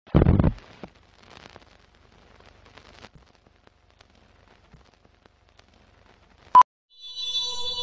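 Film-leader countdown sound effect: a heavy thud at the start, then faint scattered crackles and clicks like old film running through a projector, and one short sharp high beep about six and a half seconds in. Music comes in just after the beep.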